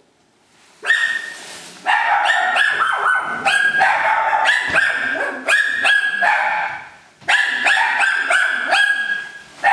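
A dog barking repeatedly in quick, high-pitched yaps several times a second, starting about a second in, with a short break about seven seconds in.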